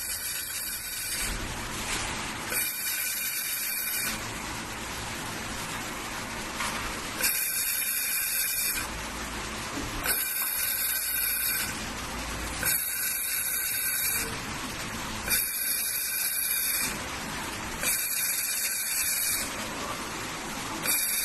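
Laser welding machine firing on lithium battery cells in a run of hissing passes, each about a second and a half long and a second or so apart, over a steady background hiss.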